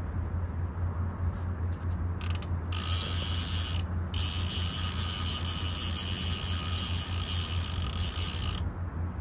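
A fishing reel's ratchet buzzing rapidly as the reel runs: a short burst about two seconds in, then two longer unbroken runs that stop shortly before the end. A steady low hum sits underneath.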